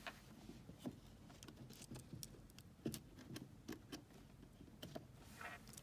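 Faint handling noise: scattered light clicks, taps and rustles of a paper or cardboard advent-calendar figure and board being handled, over quiet room tone.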